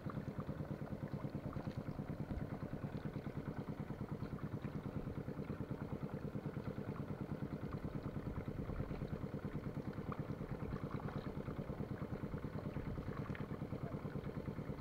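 A small engine idling steadily, an even fast chugging that does not change.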